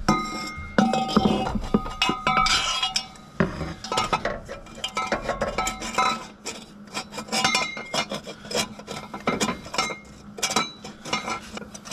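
Metal exhaust pipe clanking and knocking against metal as a tacked-together downpipe section is worked into place for a test fit, with repeated sharp clinks and scrapes. The pipe rings briefly in the first second or two.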